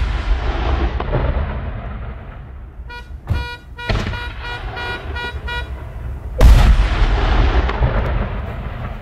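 Firework shell bursts: a loud boom just before the start rolls on as a long echoing rumble, and a second loud boom comes about six and a half seconds in with its own rumble. In between, a car horn sounds a run of short toots.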